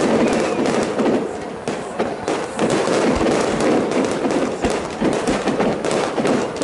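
Fireworks display: aerial shells launched and bursting in quick succession, a dense run of bangs and crackling with no pause.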